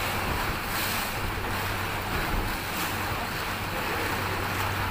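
A river tour boat under way: its engine runs with a steady low hum while water rushes along the hull and wind buffets the microphone.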